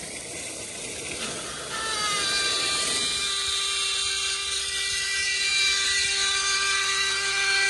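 Electric water pump running with a steady high-pitched whine that comes up about two seconds in, over the hiss of water jetting from a split in the hose it is pressurising.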